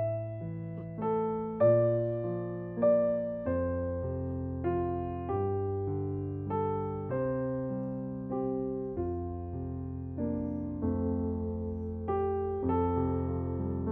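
Background music: a slow piano melody over held bass notes, each note struck and then fading away.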